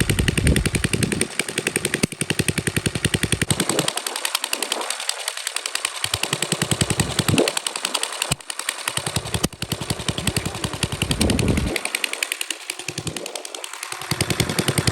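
Chainsaw running hard with a rapid pulsing beat, its note rising and falling several times as it bites into and eases off the wood.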